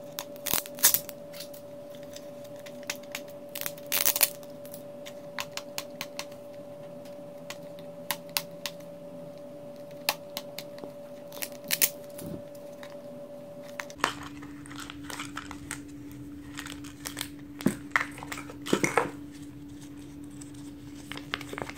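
Plastic gachapon capsule being twisted open and the wrapped toy inside handled: scattered light plastic clicks and taps with crinkling of plastic wrapping. A faint steady hum runs underneath and drops in pitch about fourteen seconds in.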